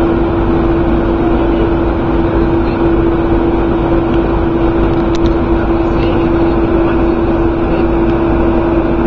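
Boat engine running steadily: a constant hum holding one strong pitch, with no change in speed.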